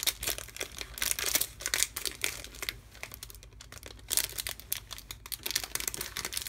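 Clear plastic packaging crinkling in the hands, in dense irregular crackles, as a stack of paper washi tape strips is handled and slid out of it.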